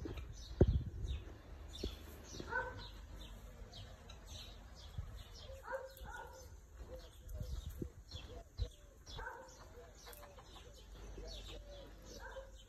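Soft, short clucking calls from a chicken every few seconds, over steady high chirping of small birds. A few dull thumps, the loudest about half a second in.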